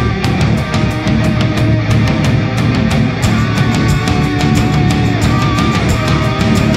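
Loud heavy rock music with distorted guitar and a fast, steady drumbeat.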